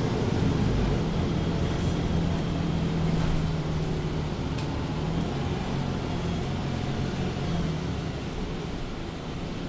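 Diesel engine of a MAN A23 Lion's City G articulated bus idling steadily with the bus at a standstill, a low even hum that eases slightly near the end.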